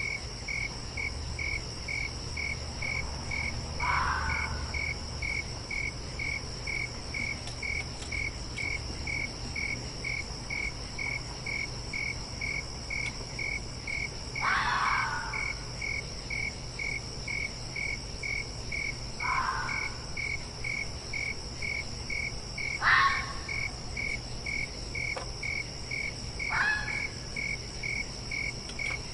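Five short fox calls, the loudest about three quarters of the way through, over crickets chirping steadily about twice a second and a constant high insect trill.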